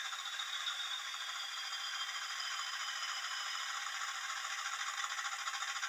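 Hornby TTS sound decoder playing a Class 20 diesel engine sound through the model locomotive's small speaker: a thin, steady rattling engine beat with a high whistle that slowly falls in pitch.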